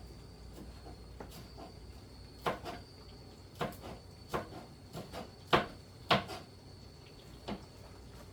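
A run of irregular sharp clicks and knocks, about eight of them and loudest around the middle, from hands working over freshly picked sancho (Korean pepper) sprigs. A faint steady high whine runs underneath.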